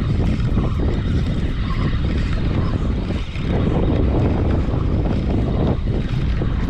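Steady wind buffeting the microphone, a loud low rumble with a brief lull about three seconds in.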